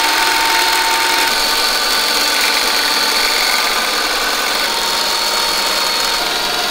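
Electrolux stand mixer running steadily, a motor hum with a faint whine, its balloon whisk beating liquid foam latex into a froth in a steel bowl during the foaming stage.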